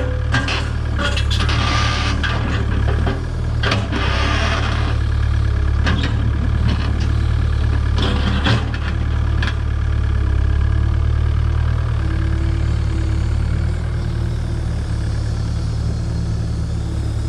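Takeuchi TB285 compact excavator's diesel engine running steadily under hydraulic work, with scattered knocks and clatter of rip rap stones in the bucket during the first half.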